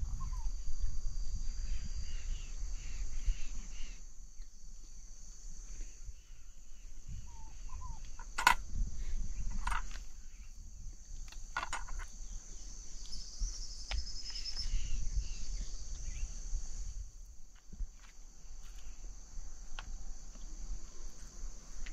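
Steady, high-pitched chorus of insects, crickets or cicadas, in the forest, with a few sharp clicks near the middle that match a knife and utensils against a tub and plates.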